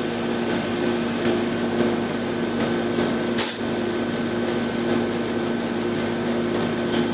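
Air-conditioning system running with a steady hum. About three and a half seconds in there is one short, sharp hiss of refrigerant as the new Schrader core is pushed in against system pressure with a core tool.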